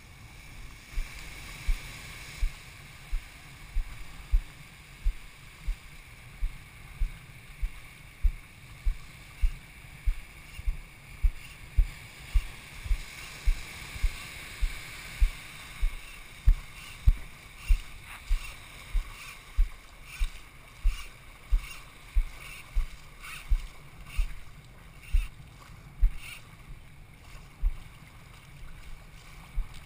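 Walking footsteps, about one and a half a second, thudding through a body-worn camera over a steady hiss of surf and wind. From about halfway through, the steps are sharper.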